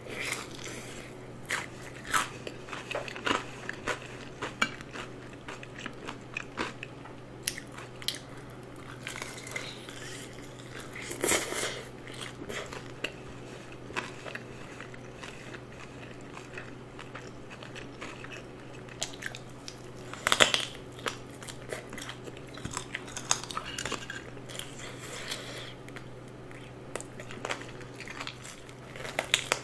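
Close-miked eating of a crispy seasoned fried chicken drumstick: the crust crunches in irregular bites, with chewing between them and a few louder crunches around a third and two thirds of the way through.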